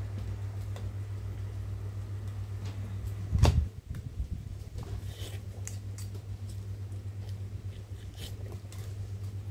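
A steady low electric hum, with small clicks and scrapes of chopsticks and a spoon against a plastic bowl during eating. One loud thump comes about three and a half seconds in.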